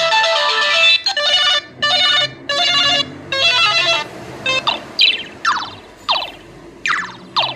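Samsung SCH-A815 mobile phone playing its ringtones through its speaker. A plucked-guitar-like melody ends about a second in, then a tone of short repeated chord bursts plays for about three seconds, then from about halfway in a tone of quick falling chirps repeats about twice a second.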